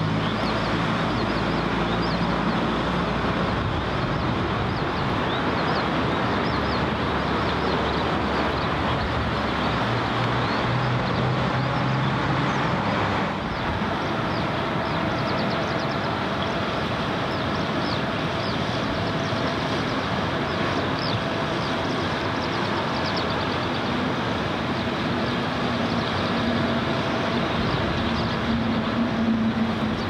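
Steady rumble of motor traffic, with engine hums that come and go at different pitches.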